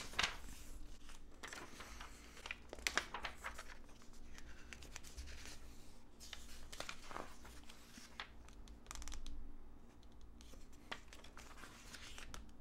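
Glossy magazine pages being turned and handled: paper rustling and crinkling in several short, scattered bursts as the pages are flipped, with a sharp click at the very start.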